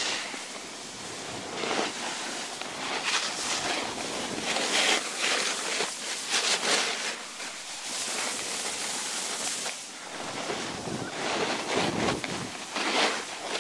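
Snowboard sliding and carving over snow, its edge scraping in repeated swells as it turns, mixed with wind noise on the microphone.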